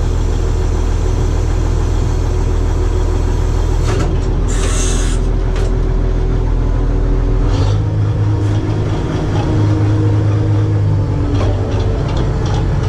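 Bizon combine harvester's diesel engine running steadily, heard from inside the cab. There is a short hiss about four and a half seconds in, and the engine's low note shifts for a few seconds from about eight seconds in.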